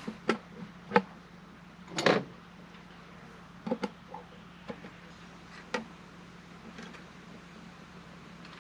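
A handful of short, sharp clicks and knocks at uneven intervals, the loudest about two seconds in, over a steady low hum.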